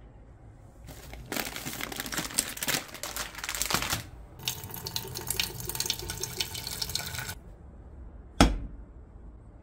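Water running from a kitchen tap in two stretches of about three seconds each. About a second before the end comes a single sharp knock, the loudest sound here, as of the stainless saucepan set down on the glass hob.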